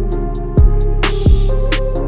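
Background music with a steady beat: deep kick-drum hits about every 0.7 seconds over sustained tones and crisp percussion.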